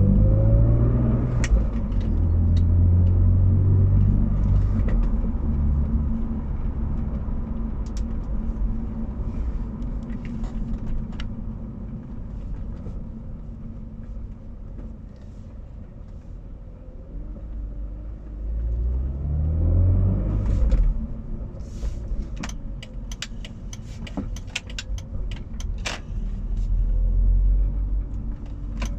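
BMW Z4 pulling away and accelerating at low speed, its note rising at the start and again about two-thirds of the way in. Under it runs a steady low hum, the rear-end humming on low-speed acceleration whose cause the owner is trying to find. Scattered light clicks and knocks are heard throughout.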